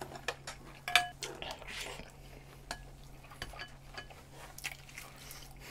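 Eating utensils clinking and tapping against dishes and food containers in scattered short clicks, with one brief ringing clink about a second in.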